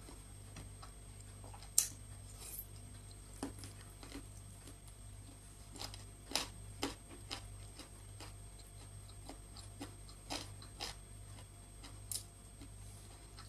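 Close-miked mouth sounds of a person eating rice and chicken soup by hand: soft chewing with scattered sharp lip smacks and clicks. A steady low hum runs underneath.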